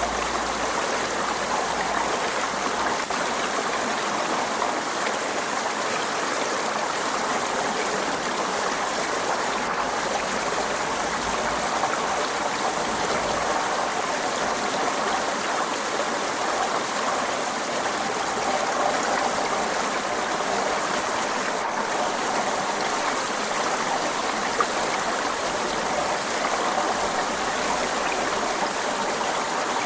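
Forest stream flowing, a steady, even rush of water.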